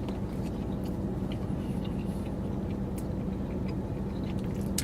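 Steady low hum, with a few faint, scattered clicks.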